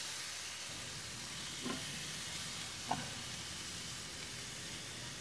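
Meat sizzling on barbecue grill grates, a steady hiss, with two brief pops of spitting fat a little over a second apart.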